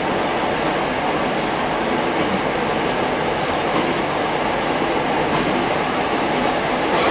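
Steady running noise inside a Kitakinki Tango Railway diesel railcar under way: engine and wheels on the rails blending into one even noise.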